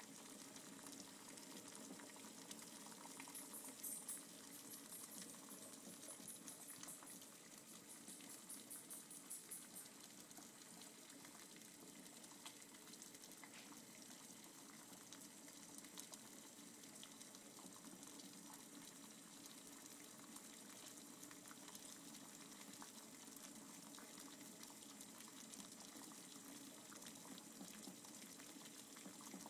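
Water boiling in a pot with pacifiers in it, bubbling faintly and steadily.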